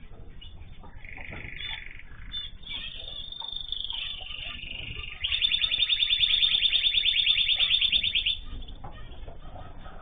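Aviary songbirds (canaries, zebra finches and a goldfinch) chirping and singing. The loudest part is a fast, even trill lasting about three seconds, starting about five seconds in.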